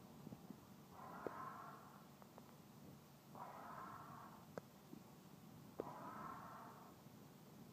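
Long forceful breaths blown by mouth into a rubber hot water bottle, three rushes of air about two and a half seconds apart, with a few sharp clicks between them.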